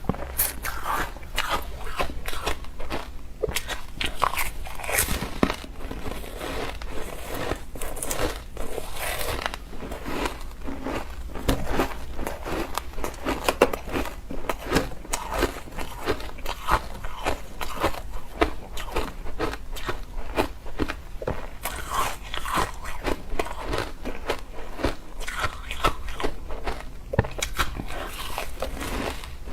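Ice being bitten and chewed, a steady run of sharp, crisp crunches and cracks, several a second, close to the mouth.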